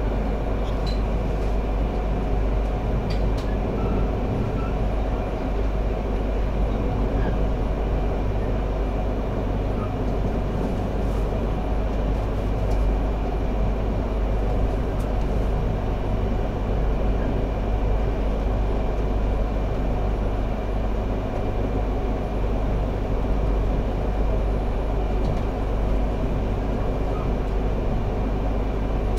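Steady running noise of a Yamagata Shinkansen Tsubasa train heard from inside the passenger car: a low rumble under an even hiss, with a few faint clicks.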